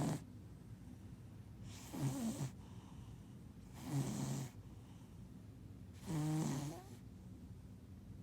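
Domestic cat snoring in its sleep: three short, pitched snores about two seconds apart, with the tail of another at the very start.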